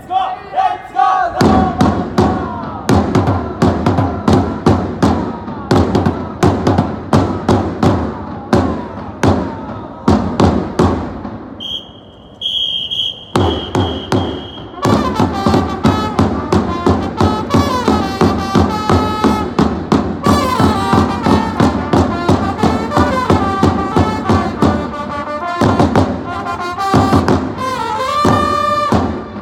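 Japanese baseball cheering-squad band playing a player's cheer song: trumpets over a steady drum beat. About a third of the way in, the drumming stops for a few seconds and only a single high steady tone sounds, then trumpets and drum come back in together.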